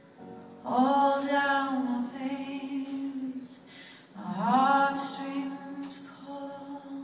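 A woman singing live with piano accompaniment: two long sung phrases, the first starting just under a second in and the second about four seconds in, over soft held piano notes.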